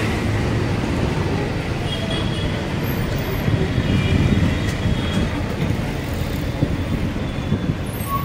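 Bangalore city bus in motion, heard from aboard: a steady low rumble of engine and road noise, with traffic around it.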